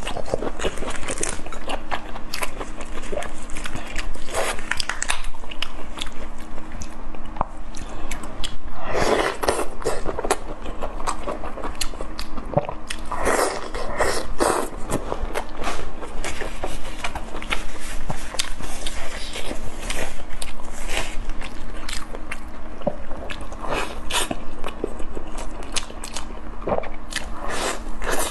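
Eating sounds: a large shrimp's shell cracking as it is pulled apart, and the meat bitten and chewed, with many sharp crackles and crunches. There are a few louder stretches of crackling about a third and halfway in, over a faint steady hum.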